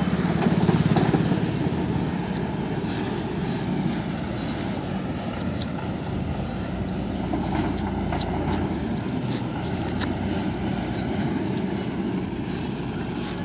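Ashok Leyland Ecomet 1615 HE truck's diesel engine running steadily at low revs, with a slight swell about a second in.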